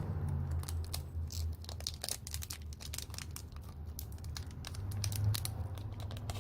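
Irregular light clicks and crinkling from small plastic phone parts being handled, over a steady low hum.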